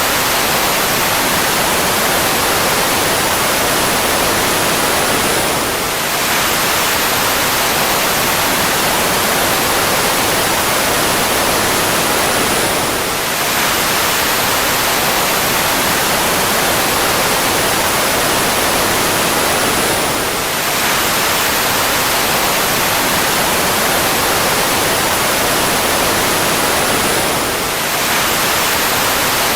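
Jet engine noise, a steady rushing roar with a faint high whine drifting slightly downward. The recording is looped, so a brief dip in level comes about every seven seconds where it restarts.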